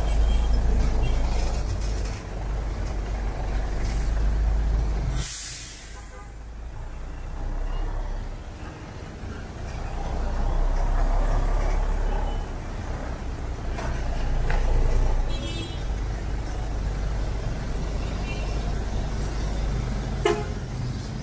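Street traffic passing close by: vehicle engines rumbling, a short hiss of air about five seconds in, and brief horn toots later on.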